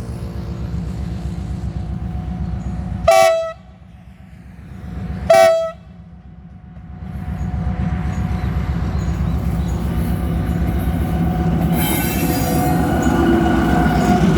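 Diesel freight train: the locomotive's horn sounds two short blasts about two seconds apart, loudest of all. Then the train's low rumble builds steadily, with wheel squeal coming in near the end as it runs past.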